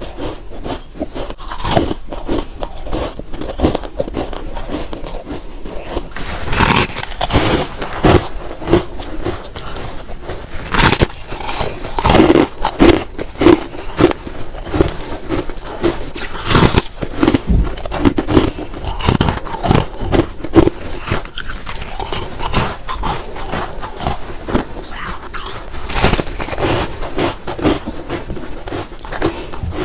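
Freezer frost being bitten and chewed close to the microphone: a continuous run of crisp crunches, with some louder bites about 11 to 13 seconds in and again around 17 seconds.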